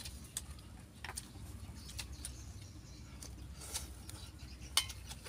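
Scattered light clicks and clinks of chopsticks against rice bowls and stainless-steel pots during a meal, the sharpest one near the end, over a low steady background.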